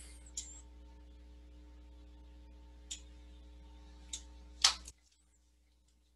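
Faint steady electrical hum on a headset microphone line, with a few short soft clicks. The hum cuts off suddenly about five seconds in, leaving near silence.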